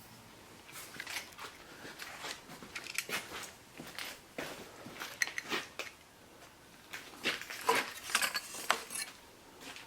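Irregular light metallic clinks and clatter of hand tools and engine parts being handled.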